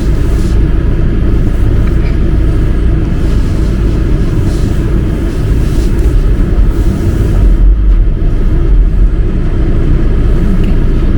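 Car driving, heard from inside the cabin: a steady, loud low rumble of engine and road noise, swelling briefly about eight seconds in.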